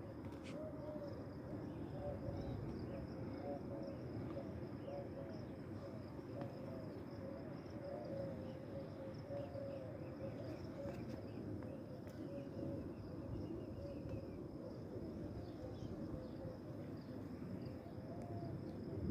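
Doves cooing over and over in a chorus of low, soft calls, with an insect's steady high trill behind them.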